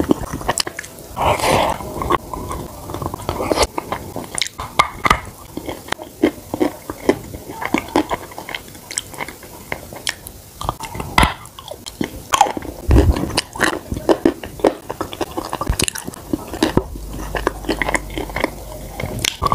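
Close-miked eating sounds of a pink cookie dipped in a thick spread: sticky, wet biting and chewing with many sharp irregular clicks and smacks, and the cookie being dragged through the spread in the jar.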